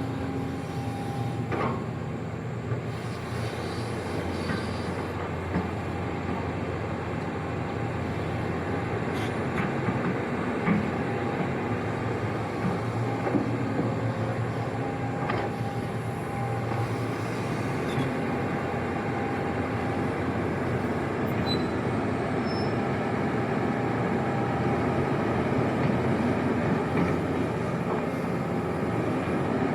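Sany hydraulic excavator working: its diesel engine runs steadily under load, with a few scattered clanks, slowly growing louder near the end.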